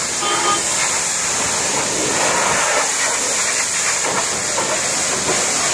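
High-pressure washer jet spraying water onto the steel loader arm of a backhoe loader: a steady hiss.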